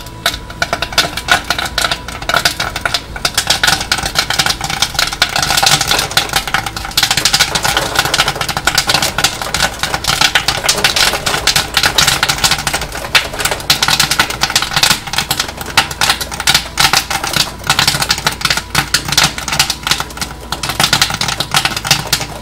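Kettle corn popping hard in a popcorn machine's heated kettle: a dense, rapid crackle of kernels bursting, busiest in the middle, with the kettle's stirring motor running under it. The batch is at full pop, before it starts to slow down.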